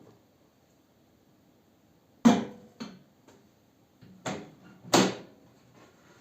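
Four sharp clunks and knocks, in two close pairs, from a microwave oven being handled after its repair and before a test run.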